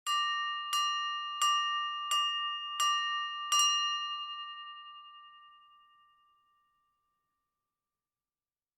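Silverware tapped six times in an even rhythm against a drinking glass, the signal that calls a room to attention for a toast. Each tap sets the glass ringing on a clear bell-like tone, which fades out over a few seconds after the last tap.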